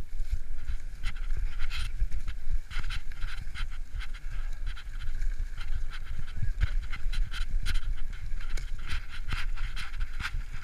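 Mountain bike ridden fast over a leaf-covered dirt trail: wind rumbling on the microphone and the bike rattling over the ground, with the rider breathing hard.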